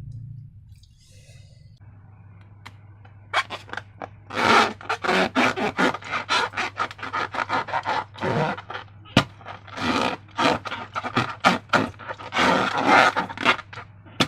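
Slime being squeezed and worked by hand, making quick irregular sticky crackles and squelches that start about three seconds in.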